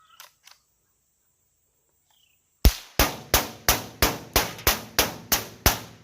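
About ten rapid semi-automatic shots from a .22 rifle, roughly three a second, starting a little under halfway in. A couple of faint clicks come before them.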